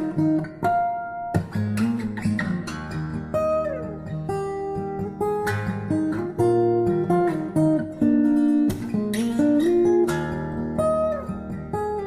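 Acoustic guitar music, with chords and single notes ringing out one after another.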